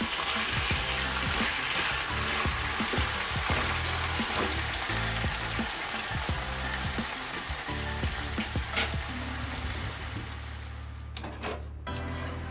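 Pork slices sizzling in a frying pan in a soy sauce and ginger glaze as the sauce reduces and thickens, with small clicks of chopsticks turning the meat. The sizzle fades near the end, and a few sharp clicks follow.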